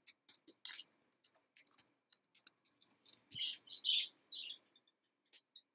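Computer keyboard keys clicking as a word is typed, a quick run of light taps through the first couple of seconds. A bird chirps in the background several times, mostly in the second half.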